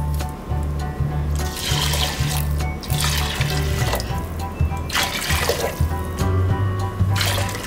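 Chicken broth poured from a measuring cup into a stainless pressure-cooker pot over glutinous rice, splashing in three separate pours of about a second or less each.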